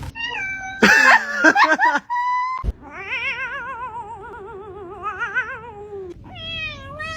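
Cat meowing and yowling in a run of calls: a short meow, a loud jumbled burst of calls about a second in, then a long wavering yowl of about three seconds with a quick warble in its pitch, and falling meows near the end.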